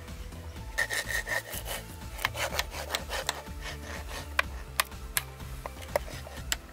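Paper being rubbed and scraped by hand: a run of rasping strokes about a second in, then scattered sharp clicks and light taps.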